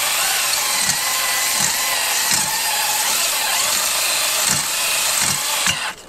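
Cordless drill spinning a cylinder hone inside a motorcycle cylinder bore: a steady whirring and scraping with a faint wavering motor whine, honing a cross-hatch into the cylinder wall. It stops shortly before the end.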